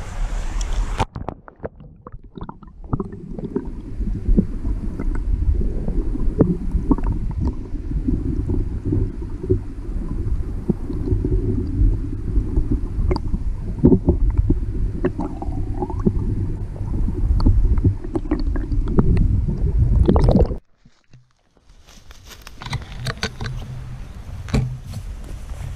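Stream water heard from below the surface by a camera held underwater: a muffled low rumble and gurgle of the current with scattered clicks. About twenty seconds in it cuts off abruptly, and brighter outdoor crackling follows.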